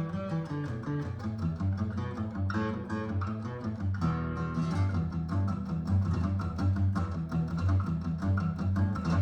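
Acoustic guitar music: a Yamaha FG5 red label dreadnought with a solid spruce top and mahogany back and sides, played in a steady rhythm over a deep bass line.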